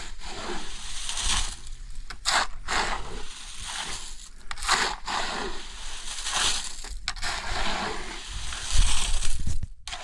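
Steel shovel blade scraping and scooping through a damp gravel-and-cement mix on hard ground: repeated gritty scrapes, about one a second, as the mix is turned by hand.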